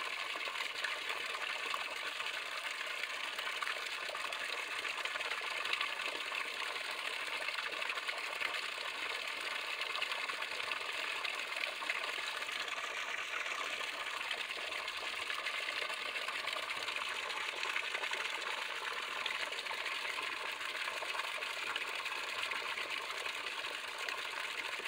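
A thin stream of spring water pouring from a pipe and splashing steadily into a shallow pool.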